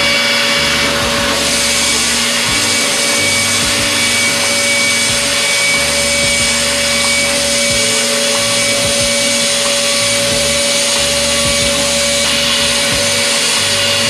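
DATRON high-speed CNC milling spindle running steadily as a small end mill cuts an aluminium flange part: a dense, steady whine and hiss with a low hum that comes and goes every two to three seconds.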